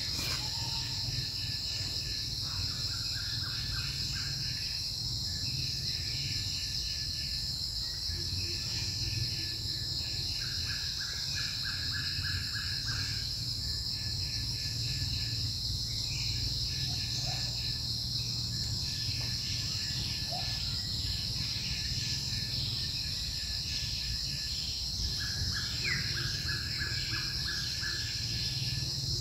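Forest ambience: a steady, high-pitched insect drone throughout, with repeated short trilling bird calls every few seconds and a low steady rumble underneath.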